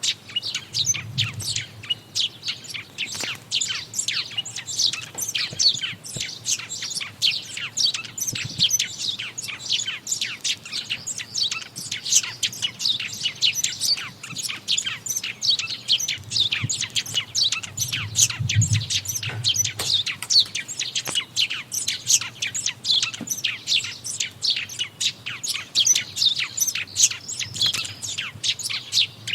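Dense chorus of many songbirds chirping and singing together in a forest, a continuous overlapping stream of short high chirps, with a faint low rumble twice.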